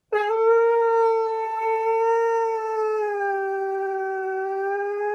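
Dog howling: one long, unbroken howl at a nearly level pitch that sags slightly about halfway through.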